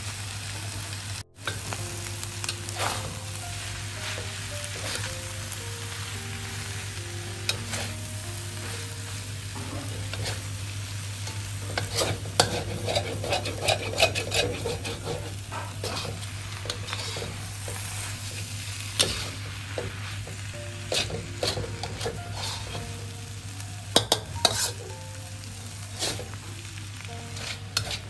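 Holy basil leaves and fermented pork stir-frying in a hot wok: steady sizzling, with a metal spatula scraping and clacking against the wok, busiest about halfway through and again near the end.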